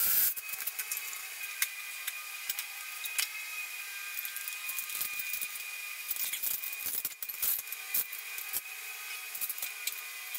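Hand tools clinking, scraping and rattling against the metal of a Ford 8.8-inch IRS rear subframe and differential: scattered light clicks and knocks, over a faint steady high whine.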